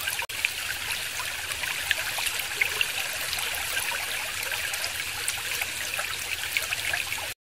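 Pen tip scratching across paper while writing a cursive signature: a steady scratchy hiss with small ticks, dropping out for an instant just after the start and cutting off abruptly near the end.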